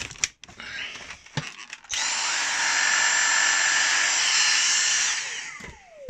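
Dyson V6 Trigger Pro handheld cordless vacuum switched on by its trigger. After a few handling knocks, its motor starts abruptly about two seconds in and runs with a steady high whine for about three seconds. When the trigger is released it spins down with a long falling whine.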